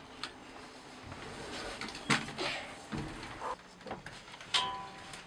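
Boots clunking on perforated metal step treads as someone climbs into a vehicle cabin: a few separate sharp knocks about two seconds in and onward, with a brief squeak near the end.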